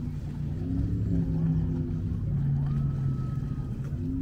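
Engine of a small passenger ferry running as it approaches across the river: a steady low rumble whose pitch shifts slowly. A brief thin high tone sounds about two and a half seconds in.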